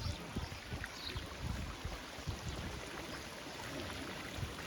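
Outdoor ambience: wind rumbling irregularly on the microphone over a steady hiss, likely including water from the pools.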